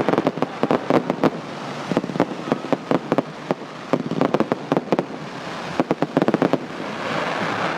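Multi-shot fireworks going off: a rapid, irregular run of sharp bangs and crackles, with a hissing rush building near the end.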